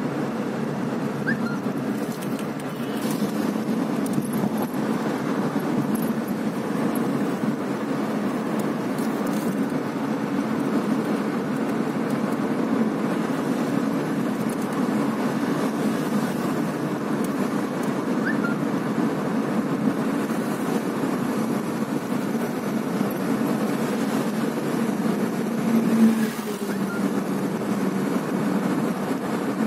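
Steady road and engine noise heard inside a moving car's cabin, with a short louder tone near the end.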